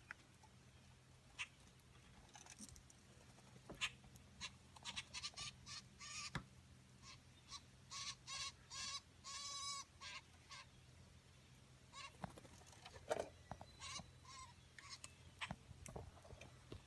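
Wild turkey calling faintly, a run of short repeated yelps in the middle, with scattered single calls before and after, over a faint steady low hum.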